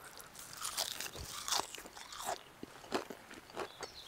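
A person biting and chewing a raw wild sweet pea shoot: a string of short, crisp, irregular crunches.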